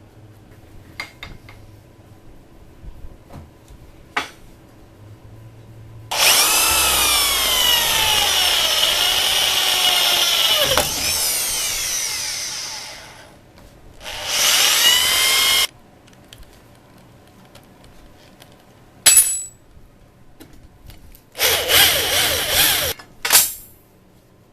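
Electric drill running in several bursts while fastening angle iron to a wooden tray, its pitch sagging and recovering under load. A long run about six seconds in, a shorter one soon after, a sharp click, and two brief runs near the end.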